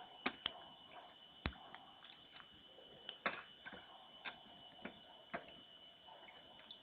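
A bear working at a feeding hole makes irregular sharp clicks and knocks, about eight of them spread unevenly through the stretch. A steady high whine runs underneath.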